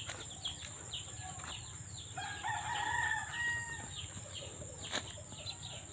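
A rooster crowing once, a held call starting about two seconds in and lasting over a second, over many short high chirps from small birds and a steady high-pitched whine.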